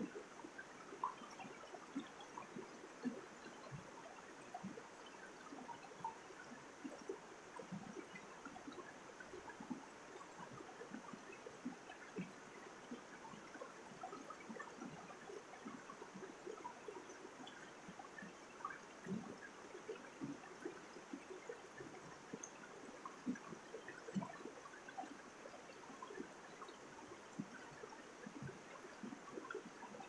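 Mountain stream running over rocks in small cascades: a steady, fairly soft rush of water full of little gurgles and splashes.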